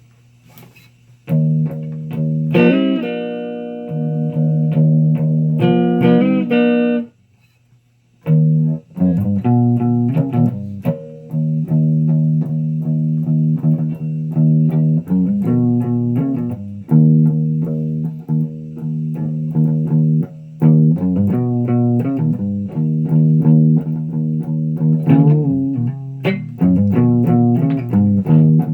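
Electric guitar played through an amp. Sustained low notes and chords start about a second in, stop for about a second a quarter of the way through, then resume as a steady run of repeated low notes.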